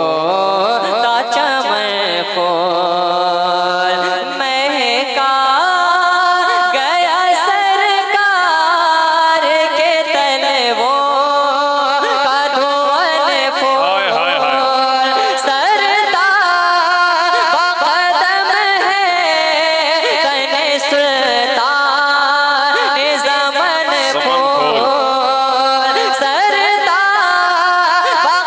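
A solo young male voice singing a naat into a microphone, drawing out long, wavering notes with melodic runs between them.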